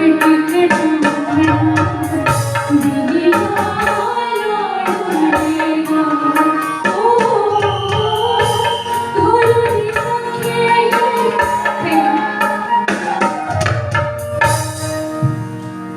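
Himachali Pahadi nati folk music: a melody, likely sung, over a steady, busy hand-drum rhythm.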